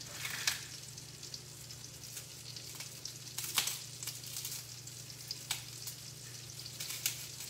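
Pork-rind-crusted pork steaks frying in a skillet on medium heat, a steady sizzle. A few sharp crackles sound over it, from dry pork rinds being crushed by hand.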